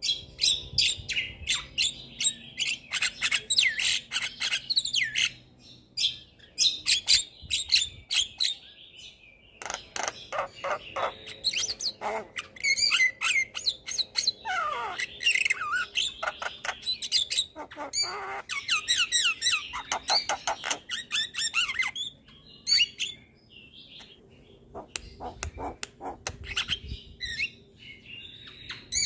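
Javan myna singing in full voice: rapid, varied runs of sharp clicks, chattering and whistles in bursts separated by short pauses, with a falling whistle about halfway through.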